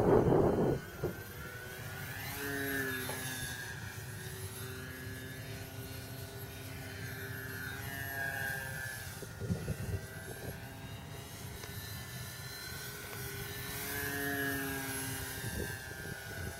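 Multiplex FunCub RC plane's brushless electric motor and propeller whining in flight, swelling and bending in pitch three times as it passes close. A brief loud rumble in the first second.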